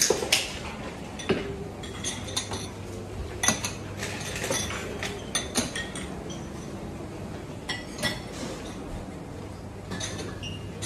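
Dishes, glasses and cutlery clinking: a scattered series of sharp, ringing clinks over a steady low hum.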